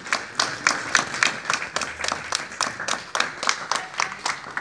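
Audience clapping together in time, a steady beat of about three to four claps a second.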